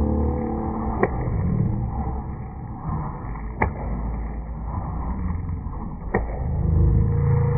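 A cardboard shake-table board knocking against a wooden workbench as it is shaken by hand: three sharp knocks about two and a half seconds apart, over a low, muffled rumble.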